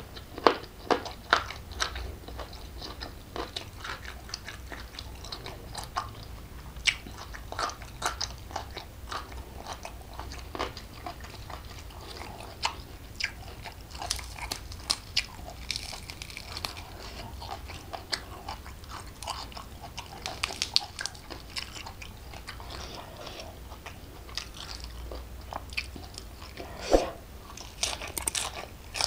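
Close-up mouth sounds of a person eating: irregular crisp crunches, clicks and wet chewing, including bites of raw lettuce leaf.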